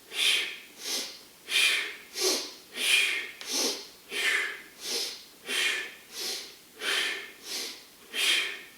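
A man breathing hard and rhythmically, quick audible breaths in and out at about three every two seconds, in time with a warm-up exercise.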